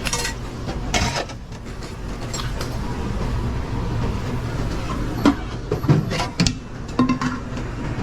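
Busy commercial kitchen at work: a steady low drone, typical of the hood ventilation, under scattered clinks and knocks of pans and utensils, several coming close together in the second half.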